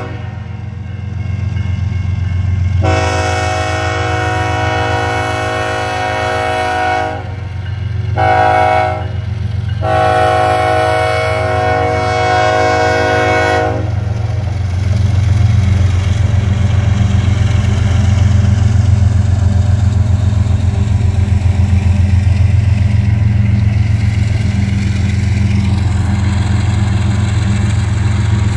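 Air horn of a BNSF GE ES44AC diesel locomotive sounding the grade-crossing signal: a long blast, a short one and a final long one that ends about 14 seconds in. Under it is the steady low drone of the locomotives' diesel engines, which grows louder as they pass after the horn stops.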